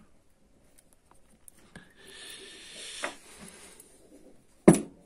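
Handling noise at a wooden workbench: about a second of hissy scraping with a faint steady tone, ending in a click, then one sharp knock near the end.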